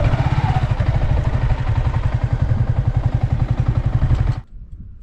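Yamaha R15 V3 motorcycle's single-cylinder engine running at low revs with a steady rapid pulse, cutting off abruptly about four seconds in.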